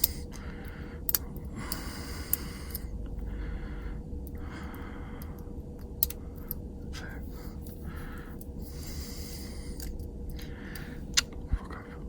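Small sharp clicks a few seconds apart from a hook pick and tension tool working the pins of a Yale Y90S 45 padlock, with breaths close to the microphone and a faint steady hum underneath.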